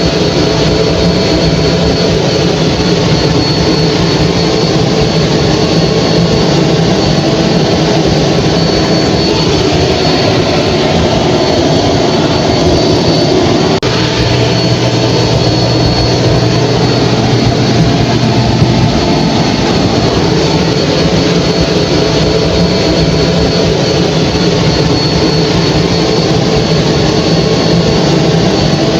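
Hair dryer running steadily: a loud, even rush of air with a thin high whine from the motor. The low hum shifts slightly about halfway through.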